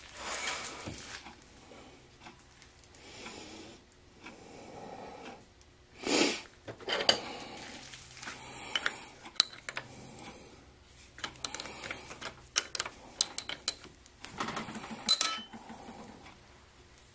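Craftsman 109 bench lathe taking a light finishing cut on a steel drill rod: irregular metallic scraping, ticking and clinking as long spiral chips curl off the work and fall, over the faint hum of the lathe running.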